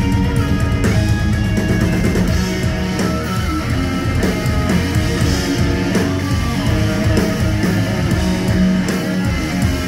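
A live rock band playing instrumental progressive rock: electric guitar leading over bass guitar and drum kit, continuous and loud.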